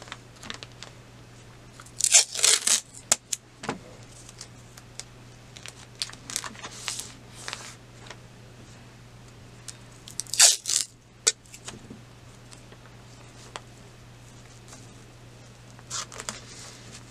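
Masking tape pulled off the roll and torn, in two short ripping bursts, about two seconds in and again about ten seconds in, with small handling clicks and rustles between over a faint steady hum.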